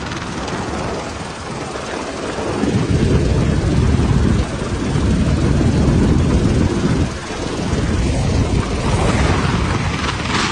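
Roar of a swollen flood river rushing past, a loud, steady noise with a heavy low rumble that swells and dips a few times.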